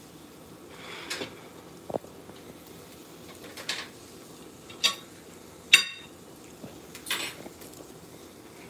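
Metal spatula scraping and clicking against a nonstick skillet: about six short strokes, the loudest about six seconds in.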